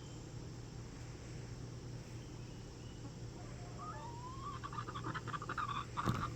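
A poultry bird's call: a short rising note about four seconds in, running into a rapid chattering grumble, over a faint steady hum. A sharp click near the end.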